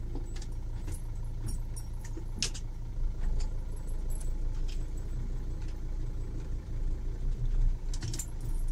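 Camping-car engine idling, heard from inside the cab as a steady low hum, with scattered light clicks and rattles.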